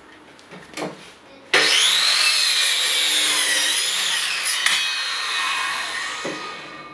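A GALAX PRO 185 mm, 1200 W circular saw starts suddenly about a second and a half in and bevel-cuts a wooden board at 45°, its motor whine dipping and rising as the blade takes the load. Near the end the saw comes out of the cut and the sound winds down. A few light handling clicks come before it starts.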